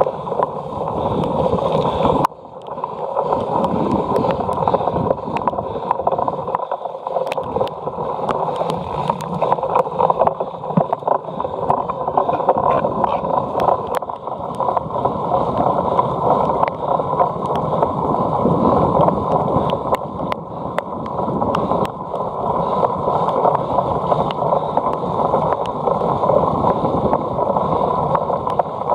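Steady wind rush on the microphone of a cyclocross bike being ridden at race pace, with many sharp clicks and rattles from the bike jolting over rough ground.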